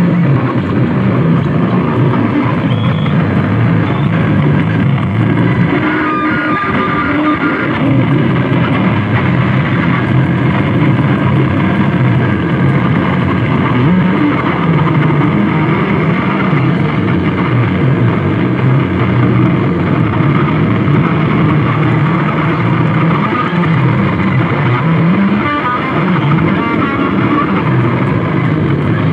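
Loud, unbroken wall of distorted electronic noise from a live harsh-noise performance, with a low churning drone that wavers and shifts in pitch.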